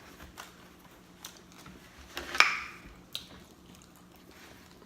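Close-miked eating: quiet chewing and soft mouth clicks, with one sharp, louder bite about two and a half seconds in.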